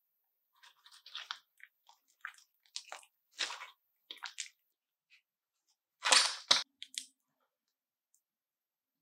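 Crunchy butter slime being pressed and squished by hand, crackling and popping in short irregular bursts. The loudest crunch comes about six seconds in, and the sounds stop about seven seconds in.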